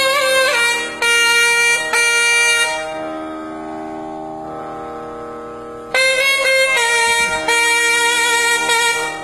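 Nadaswaram playing an unmetered Carnatic alapana in raga Sahana: long, reedy held notes with gliding ornaments. In the middle there is a pause of about three seconds where a softer steady drone carries on, then the melody comes back loud.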